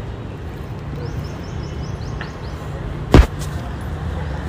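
Steady low outdoor rumble with a few faint ticks, and one sharp, loud knock a little after three seconds in.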